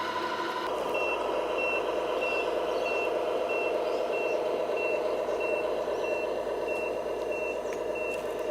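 Reversing beeper on a radio-controlled construction vehicle, a single high beep repeating about one and a half times a second as the machine backs up, over a steady engine-like running noise.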